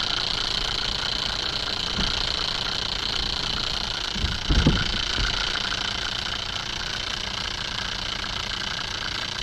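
Small DC motor spinning a homemade generator's magnet rotor inside a sump pump stator coil, a steady high whine. A low thump about four and a half seconds in.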